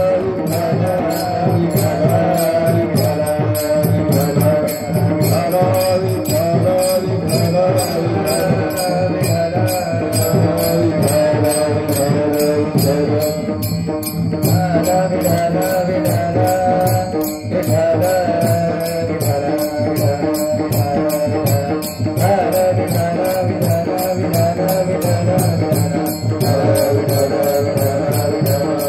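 Devotional bhajan music: small hand cymbals (taal) clashing in a fast, steady rhythm, with a chanted melody running over them.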